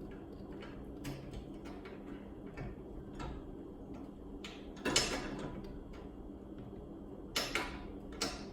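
Scattered clicks and light knocks as a new toothed rubber belt for a Chamberlain garage door opener is forced onto its pulley by hand in a tight fit. The loudest knocks come about five seconds in and twice around seven and a half seconds in, over a steady low hum.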